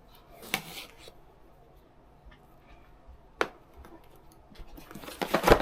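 Cardboard box being cut and opened by hand with a knife: scattered scrapes and a couple of sharp clicks, then a burst of louder rustling of cardboard and packing near the end.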